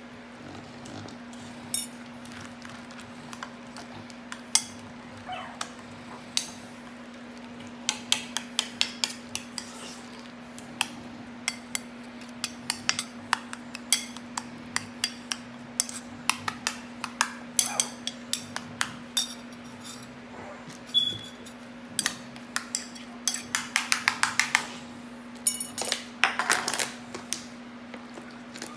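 Metal spoon clinking and scraping against a small stainless steel bowl while stirring ground puppy food, in quick runs of sharp clicks. Near the end, water poured in from a plastic bottle. A steady low hum runs underneath.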